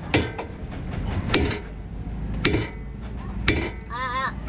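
Hammer blows on metal, four evenly spaced strikes about one a second, each with a short metallic ring, during work on a truck's rear axle.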